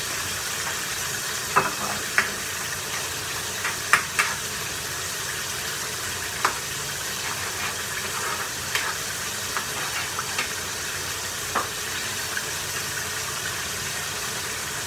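Corned beef and cabbage sizzling in a hot wok with a steady frying hiss, while a metal spatula stirs it and clanks sharply against the pan every second or two.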